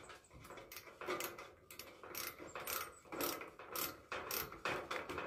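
Ratcheting hand screwdriver clicking in short runs, about two or three clicks a second, as it drives a screw through a metal roofing sheet into a wooden board.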